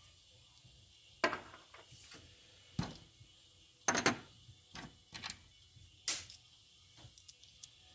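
Small metal air fittings and a blow gun being handled and set down on a workbench: about half a dozen irregular clicks and knocks, the loudest cluster about halfway through.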